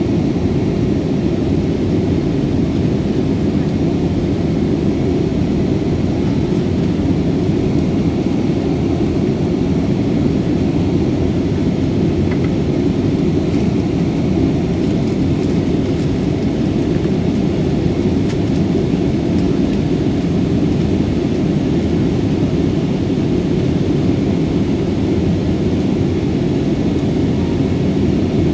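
Steady low roar of an Airbus A321's engines and airflow, heard from inside the passenger cabin as the jet climbs out after takeoff.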